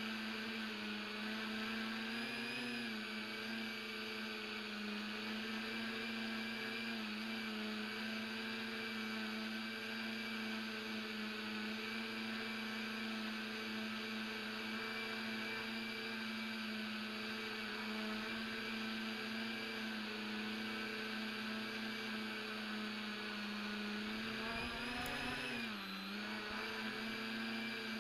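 Rhino tricopter's three electric motors and propellers running with a steady whining hum in flight. The pitch dips and comes back up near the end as the throttle is eased and reapplied.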